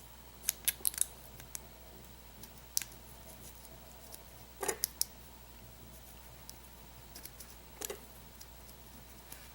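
Scattered light metallic clicks and scrapes of a thin shim being pushed and worked at a pin-tumbler lock's cylinder, a few small ticks at a time, as the shim will not slide in.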